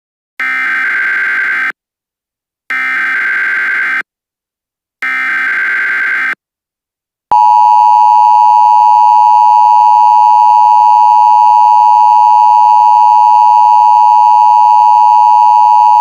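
Emergency Alert System SAME header: three identical bursts of digital data warble, each about a second and a half long and about a second apart. A long steady alert tone follows, louder than the bursts, beginning about seven seconds in and still sounding at the end.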